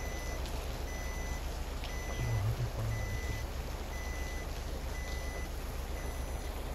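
A car's electronic warning beeper giving a high beep about once a second, over the low steady rumble of the car's engine heard from inside the cabin.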